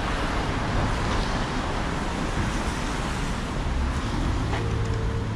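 Steady street traffic noise: a continuous wash of passing cars. A low steady hum joins about four and a half seconds in.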